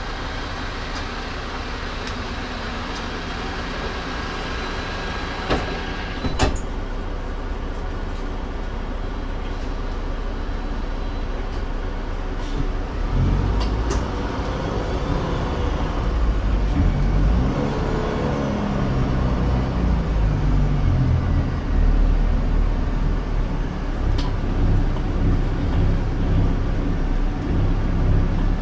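Mercedes-Benz OM936 straight-six diesel of an Alexander Dennis Enviro 500 double-decker bus, with a Voith automatic gearbox. It idles steadily with two sharp clicks around six seconds in. From about thirteen seconds it grows louder as the bus pulls away and accelerates, the engine note rising and falling through the gear changes.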